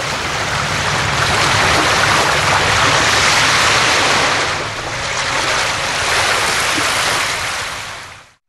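Waves washing in, a steady rush that swells and eases, fading out near the end.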